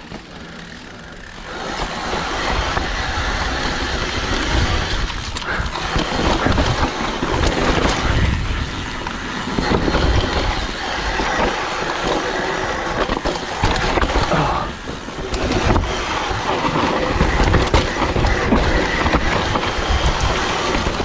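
Mountain bike descending a wet, muddy trail: a steady rush of tyres over dirt with the bike's chain and frame rattling over rough ground. It picks up about a second and a half in.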